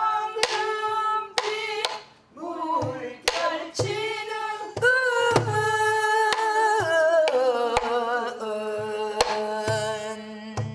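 A woman singing a Korean sinminyo (new folk song) line in a wavering, ornamented voice, beating time on a buk barrel drum with a stick: sharp stick knocks and deep drum thumps at uneven intervals under the singing.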